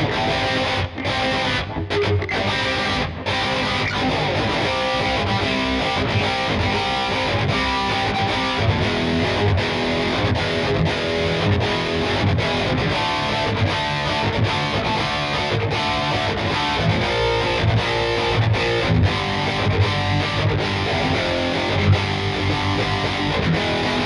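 Schecter C1 Elite electric guitar played through a distorted tone, a continuous stream of quick riffs and note runs, with a few brief stops in the first three seconds.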